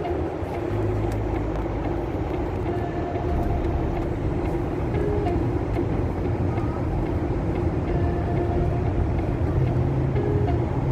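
Steady road and engine noise of a car driving, an even low rumble throughout, with a few brief faint tones over it.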